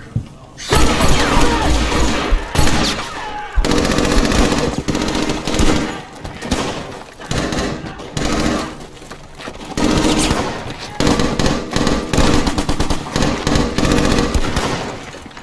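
Heavy machine-gun and rifle fire in a film battle scene. It starts loud a little under a second in and goes on in dense, uneven volleys.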